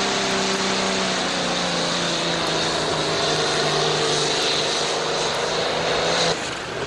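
John Deere 4050 pulling tractor's engine running flat out as it drags the weight-transfer sled, a loud steady engine note whose pitch sags slowly as the pull goes on. The sound cuts off suddenly near the end.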